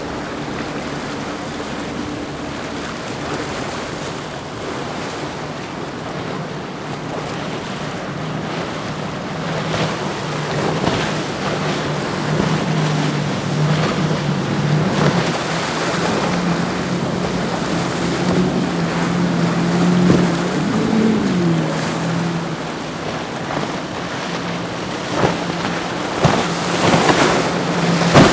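Powerboat engines running at speed past the listener: a steady engine drone that grows louder through the middle and slides down in pitch about two-thirds of the way in as a boat goes by. It is heard over hull spray, waves and wind on the microphone, with several sharp splashes near the end.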